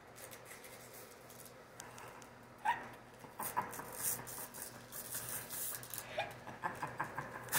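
Christmas wrapping paper being torn off a present and crinkled by small hands, a crackly rustling with quick rips that starts up about three seconds in. A brief high-pitched squeak comes just before the rustling begins, and a fainter one comes about six seconds in.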